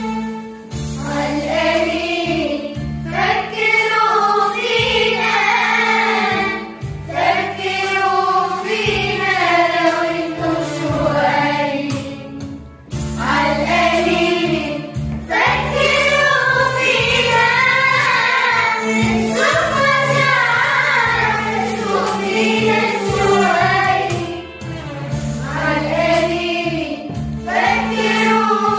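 A choir singing an Arabic pop song in unison over an instrumental backing with a sustained low bass line. The phrases pause briefly now and then.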